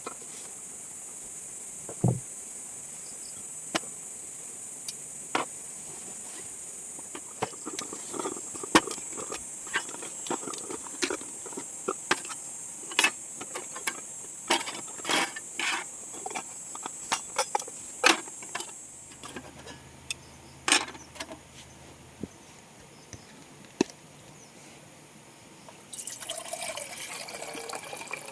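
Scattered short clicks and knocks of camp gear being handled over a steady high-pitched hum that stops after about two-thirds of the way through. Near the end, water starts pouring into a container.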